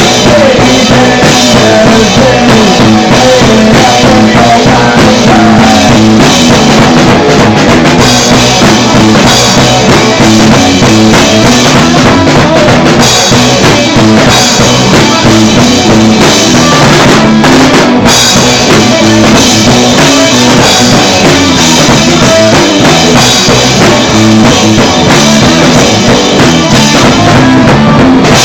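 Loud punk rock band playing: distorted guitars, bass and a pounding drum kit, with no vocals prominent.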